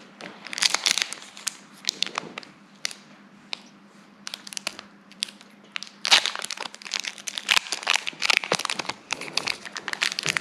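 Foil wrapper of a Pokémon booster pack being crinkled and torn open: a run of sharp crackles, sparser in the middle and busier and louder in the second half.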